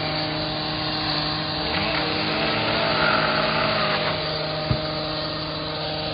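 Small engine of a gas-powered landscaping tool running steadily, swelling slightly in the middle, with one sharp knock about three-quarters of the way through.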